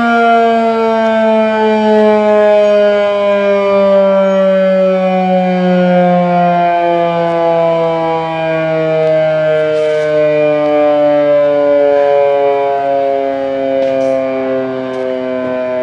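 A 12-port Federal Electric Fedelcode Model 5 outdoor warning siren wailing loudly, its steady tones sliding slowly down in pitch.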